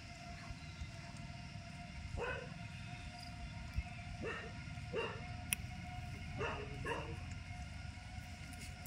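Five short animal calls with a faint steady hum behind them. The later calls come in quick pairs.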